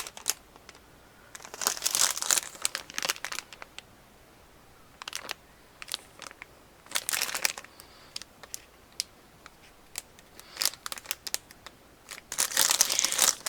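Crinkly plastic squishy packaging being handled and pulled open, in several short bursts of rustling separated by quiet pauses, loudest near the end.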